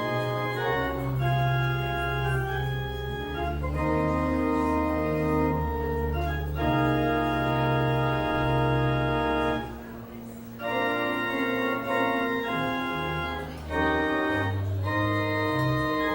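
Organ playing slow, sustained chords over long-held low bass notes, the chords changing every second or two, with a brief break about ten seconds in.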